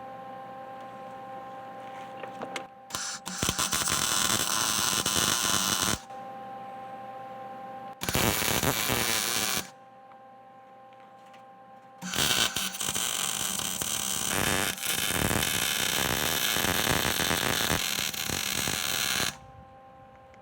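Arc welding steel gussets onto a truck frame: three bursts of crackling weld, the last and longest about seven seconds, with a steady hum in the pauses between them.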